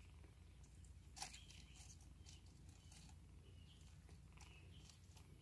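Near silence with faint scuffling and light taps of four-week-old kittens playing, the sharpest tap about a second in, and a few faint short high chirps.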